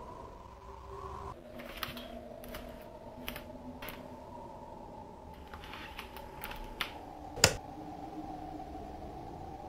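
A string of short, irregular clicks and knocks, the loudest one about seven and a half seconds in, over a faint steady hum.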